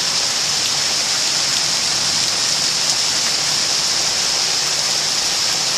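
Heavy rain pouring down steadily, a dense, even hiss with no breaks.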